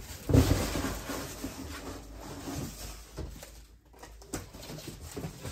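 A large cardboard box being slid up and lifted off a metal shipping crate: cardboard scraping and rustling, with a thump just after the start and a short lull a little past the middle.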